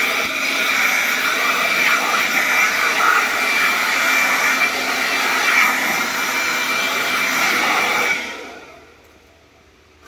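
Blower blowing air through a hose nozzle into the condenser coil fins to clear out loosened dust: a steady rush of air with a high whine, switched off about eight seconds in and winding down.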